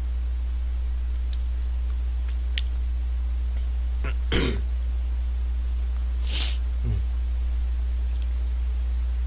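Steady low electrical hum, with a few faint ticks and two short breathy mouth noises, the louder one about four seconds in and a hissing one about six seconds in.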